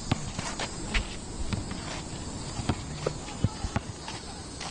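Basketball dribbled on an outdoor asphalt court, several irregular bounces a second, with sneaker footsteps.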